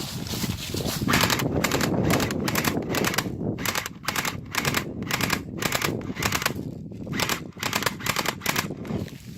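Airsoft Uzis firing in a rapid, steady string of shots, about three a second, starting about a second in and stopping shortly before the end.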